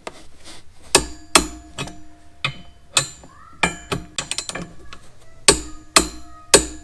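Hand tools clicking and clanking on metal while bolts are run in and tightened: a string of irregular sharp metallic clicks and knocks, the loudest leaving a short ringing tone.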